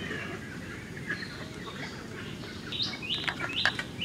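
Small birds chirping, with a run of short, sharp, high calls repeating a few times a second from about three seconds in.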